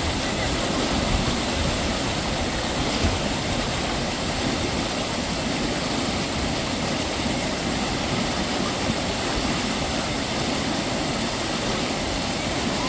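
Steady rushing water, an even noise that does not change.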